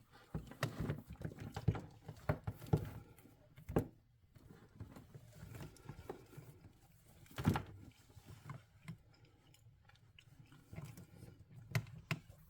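Handling noise from a taped-up electrical power cord being handled and shown: scattered faint rustles and clicks, with two louder knocks, about four seconds in and about seven and a half seconds in.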